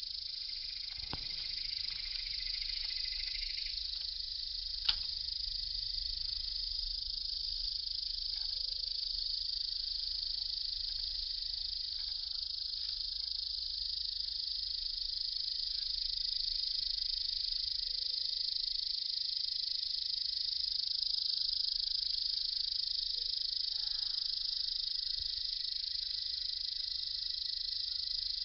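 A steady high-pitched insect chorus from the meadow grass, with a sharp click about five seconds in.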